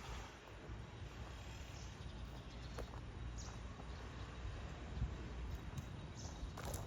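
Quiet outdoor ambience: a steady low rumble with a few faint, scattered clicks.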